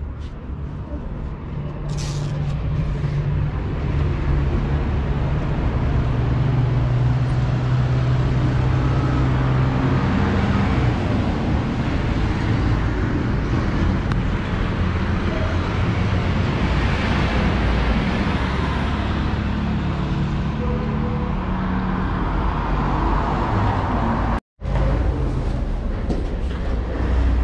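Street traffic: vehicle engines running and passing as a steady rumble with a low hum, swelling in the middle as a vehicle goes by. The sound cuts out for an instant near the end.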